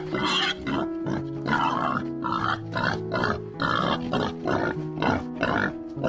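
A farm animal giving short, rough calls in quick succession, about two or three a second, over background music with steady held notes.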